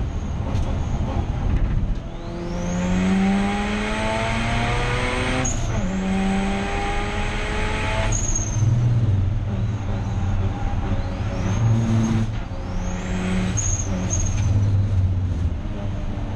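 Turbocharged 13B rotary engine of a Mazda RX8 race car pulling hard through the gears: the revs climb, drop at a gear change about five and a half seconds in, climb again, ease off around eight seconds, then rise in two shorter bursts further on. A high whistle rises with the revs.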